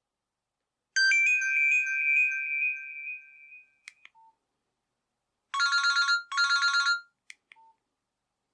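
Nokia 6600 Slide mobile phone's speaker playing ringtones. A chiming tone starts about a second in, rings on and fades away. After a pause comes a rapid trilling ringtone in two short bursts. Brief short beeps and clicks fall between them.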